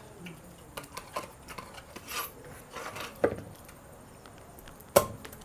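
Metal ladle stirring and mashing thick urad dal in a pressure cooker, scraping and clinking against the metal pot. There is a sharper knock about three seconds in and another near the end.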